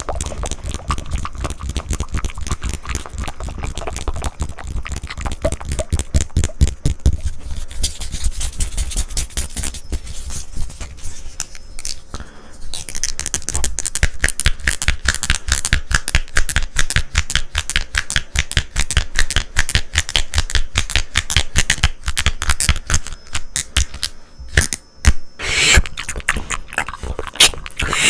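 Close-miked ASMR mouth sounds: rapid, continuous wet clicks and tongue fluttering, with a louder burst near the end.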